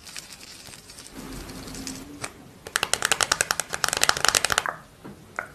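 Long acrylic fingernails tapping rapidly on a plastic lip-mask sachet, ASMR-style: a fast run of crisp clicks, about fifteen a second, that starts about halfway through and lasts about two seconds. Before it there are softer pats and rustles.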